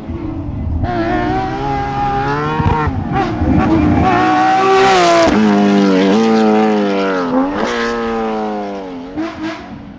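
Porsche 992 GT Rally car's engine at high revs, passing at speed on a rally stage. Its pitch climbs and drops with gear changes, then falls over the second half, broken by a few sharp rev blips, before it fades near the end.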